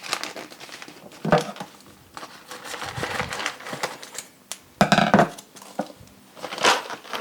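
Whole coffee beans poured into the hopper of a Cuisinart DBM-8 burr grinder, rattling in irregularly, with a bag crinkling and a few louder clattering handfuls.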